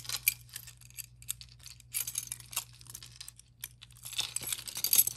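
A necklace being handled: light clicks and clinks of a metal chain and clasp with crinkly rustling, in scattered bursts that are busiest about two seconds in and again near the end.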